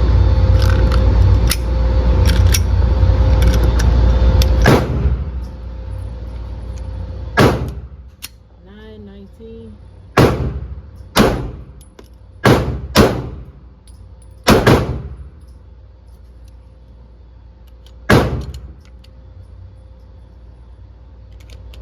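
Pistol fired eight times at an uneven pace, each shot a sharp crack with a short echoing tail. A loud rough noise fills the first few seconds before the first shot.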